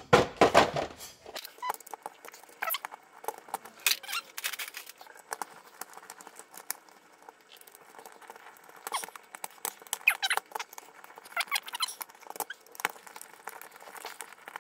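Phillips screws being turned out of the back of a car heater control module with a hand screwdriver: small squeaks, scrapes and clicks, scattered unevenly, with a few louder knocks of handling in the first second.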